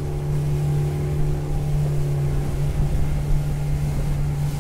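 Small boat's outboard motor running steadily at cruising speed, a constant low drone with water rushing past the hull.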